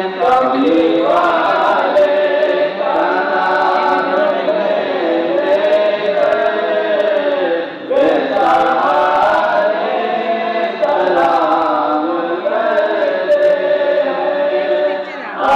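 A crowd of voices singing a devotional salaam together in long, drawn-out melodic phrases, with a short break about halfway through.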